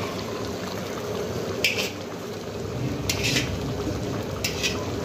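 Beef mince and marrow bones simmering and bubbling in a watery gravy in a karahi, the water still cooking off before the meat is fried. A metal spatula scrapes the pan three times, about a second and a half apart.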